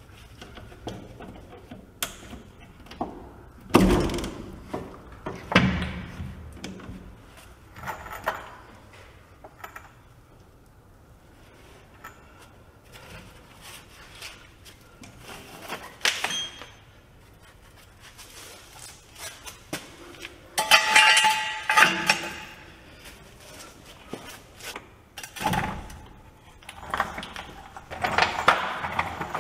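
Intermittent metal clunks and knocks, with chain rattle, from a heavy truck leaf spring pack being worked into place hanging from a hand chain come-along; a longer rattling clatter comes about two-thirds of the way through.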